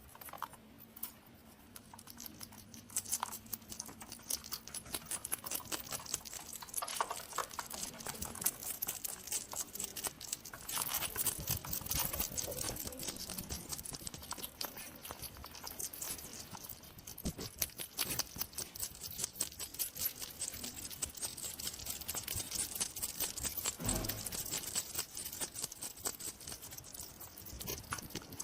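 Hedgehog sounds: a dense, irregular run of quick clicks and crackles, growing somewhat louder about eleven seconds in.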